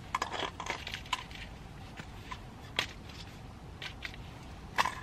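Irregular rustling and light clicks of small items being handled, with a sharper click about three seconds in and another near the end.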